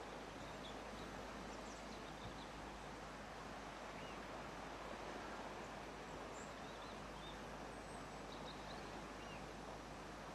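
Steady outdoor background rush with faint short bird calls now and then.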